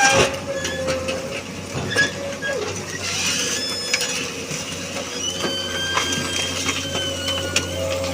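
Excavator running under load, with a steady low hum and a wavering hydraulic whine, broken by frequent clicks, knocks and high squeaks as it works.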